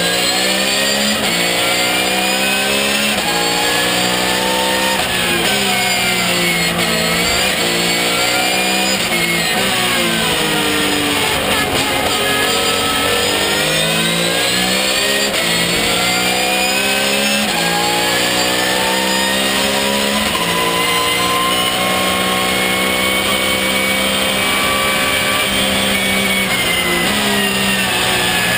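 Porsche 911 GT3 Cup race car's flat-six engine at full throttle, heard from inside the cockpit. The revs climb in steps through quick upshifts, then drop away with downshifts for the corners, several times over.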